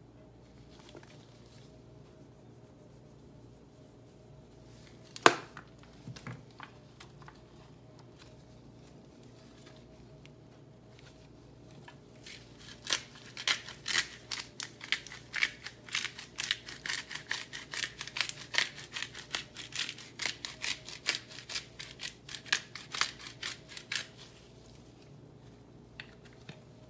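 A sharp click about five seconds in, then a few lighter clicks; from about halfway, a plastic spice shaker shaken in quick strokes over the squash, many rattling taps a second, stopping shortly before the end.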